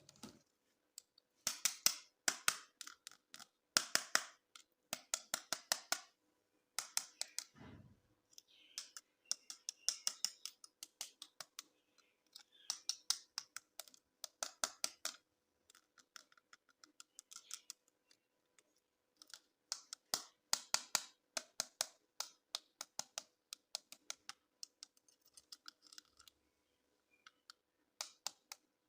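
Plastic toy packaging being handled and opened: bursts of rapid, sharp clicking and crackling, with a short dull knock about seven seconds in.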